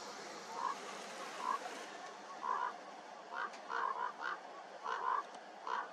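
About ten short animal calls, singly and in quick pairs, coming closer together in the second half, over a steady hiss.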